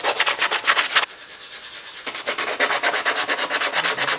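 Sandpaper rubbed by hand along a curved hardwood bow-knife frame, fast back-and-forth strokes about six a second. The strokes pause about a second in and start again about a second later.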